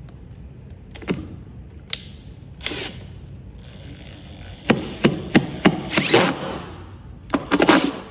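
Makita cordless impact driver driving a screw into the floor in several short bursts of rapid hammering, the heaviest about five seconds in and again near the end, after a few single clicks.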